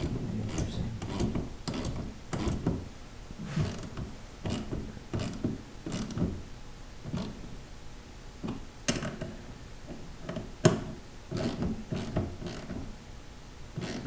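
Ratchet wrench clicking in short, irregular strokes as bolts are run into a snowblower's rubber auger, with a couple of sharper metallic clicks near the end.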